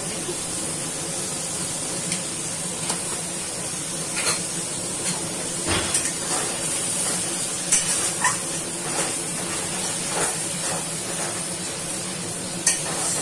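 Onion-paste masala sizzling in hot oil in a metal kadai, with a metal spatula scraping and clicking against the pan at irregular moments as it is stirred. The masala is being fried down until the oil separates.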